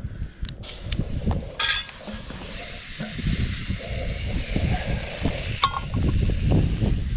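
Food sizzling in a pan over a campfire, a steady hiss that fades out near the end, under strong wind buffeting the microphone. A couple of sharp clicks, one about a second and a half in and one near the end.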